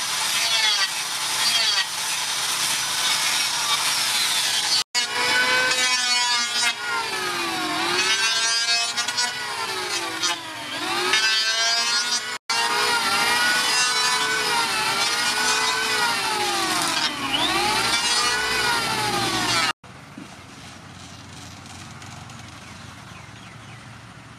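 Power tools working a wooden handle. First an angle grinder with a sanding disc runs against the wood, then a Maktec electric hand planer shaves it, its motor whine dipping in pitch and recovering several times under load. About twenty seconds in, the sound drops to a quieter steady background.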